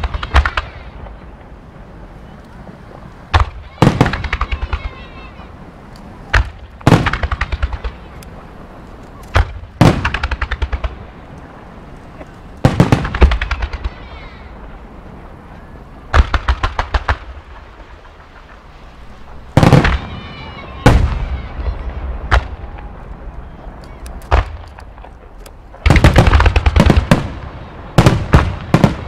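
Fireworks finale: volleys of shells bursting every few seconds, each a sharp bang followed by a rapid run of smaller reports and crackle. Near the end the volleys merge into a dense, continuous barrage.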